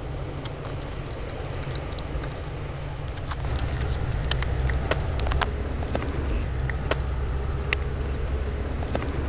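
A cat chewing wet food, giving a scatter of sharp clicks, mostly in the middle of the stretch. Under it runs a steady low rumble that grows louder a few seconds in.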